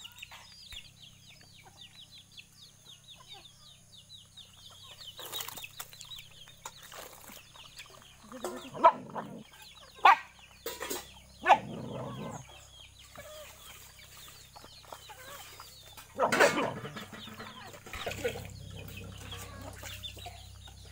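Chickens clucking and cheeping, with a few loud, sharp knocks about halfway through.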